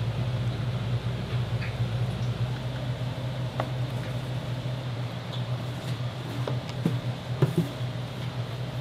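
Steady low mechanical hum of kitchen equipment, with a few faint clicks and taps scattered through, more of them in the second half.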